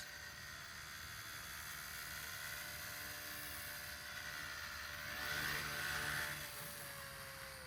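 XK K110S micro RC helicopter's motor and rotor whirring at low idle headspeed, swelling louder for a moment about five seconds in, then the pitch sliding down near the end as it spools down.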